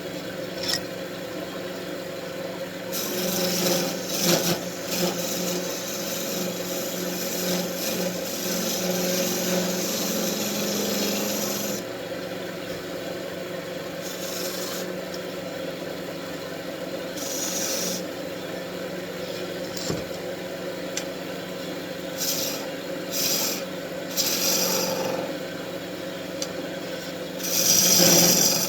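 Wood lathe motor humming steadily while a turning tool cuts the spinning wood in scraping passes: one long cut of about nine seconds starting some three seconds in, several short cuts after it, and a louder cut near the end. The cutting is roughing down waste wood at the tailstock end of a wand blank.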